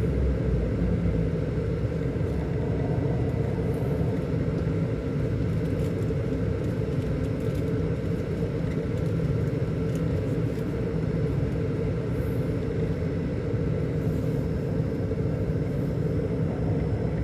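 Scania K400 Euro 5 six-cylinder diesel bus engine running steadily, a low even rumble that holds constant throughout.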